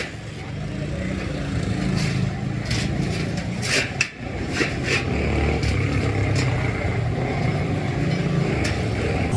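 A steady low motor-like rumble with a scattered series of short sharp knocks, about eight or nine over several seconds.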